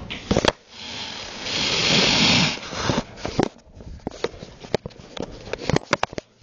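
Handling noise from a camera being picked up and moved: a loud rustling rub about one and a half seconds in, then a scatter of sharp clicks and knocks.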